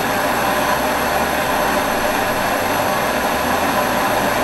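Daiso one-touch gas torch on a CB butane canister burning with a steady, even hiss: the flame is burning stably.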